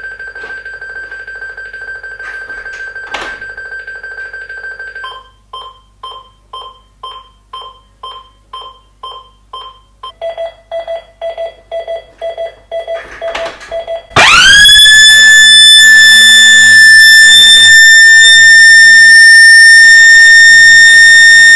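Garage alarm panel sounding a steady tone, then short beeps about twice a second, then faster, lower beeps. About 14 seconds in, a MasterBlaster 127 dB alarm siren cuts in: its pitch sweeps sharply up and then holds as a steady, very loud tone, measured at about 126 dB.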